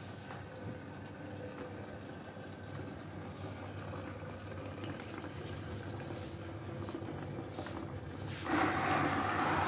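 Small electric aquarium air pump buzzing steadily. Near the end, louder bubbling starts as its airline goes into a bucket of water, aerating it.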